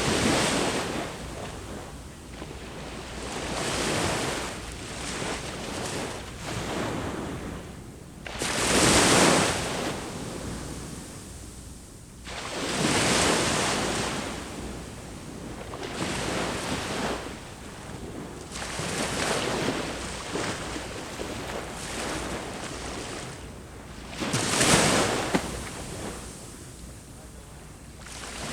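Sea waves breaking on a beach, one surge of surf after another every few seconds, each swelling and washing back; the biggest breakers come about nine seconds in and again near the end.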